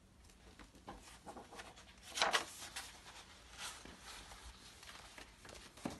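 Paper pages of a picture book rustling and flapping faintly as they are turned over by hand, with a louder rustle about two seconds in.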